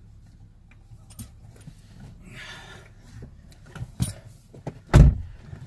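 Small metallic clicks and rattles of tools and mounting hardware while the grab handle's bolts are snugged down, with a sharp knock about four seconds in and a heavier thump about a second later.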